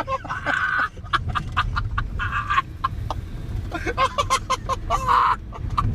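Car horn sounding in several short honks, set off by the left turn signal it has been wired to, amid hard laughter from the people in the car.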